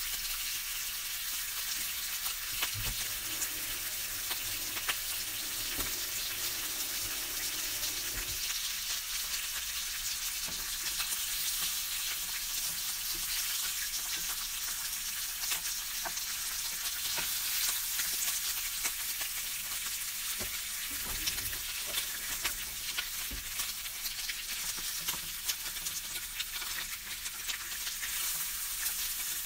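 Bacon pieces frying in a pan: a steady sizzle dotted with crackles, with a wooden spatula now and then knocking and stirring them in the pan.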